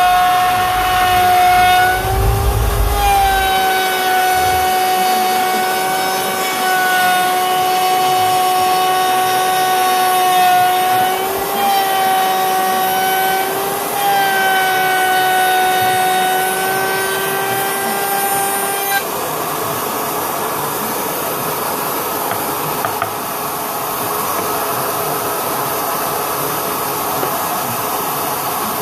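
A fixed-base router mounted under a homemade router table runs at full speed with a steady high whine. Its pitch sags briefly a few times as it takes load cutting a quarter-inch groove in wood. About 19 seconds in, the clean whine gives way to a rougher, noisier running sound.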